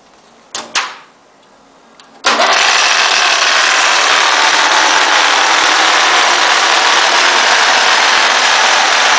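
Electric wall-plastering machine switched on at its push-button control panel: two short knocks, then about two seconds in its motor starts abruptly and runs with a loud, steady noise.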